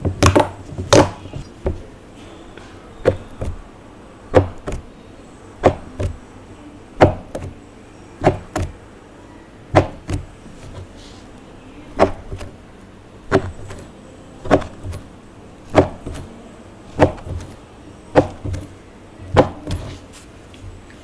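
Clear slime being worked by hand, a short sharp sticky pop about every second and a quarter in an even rhythm.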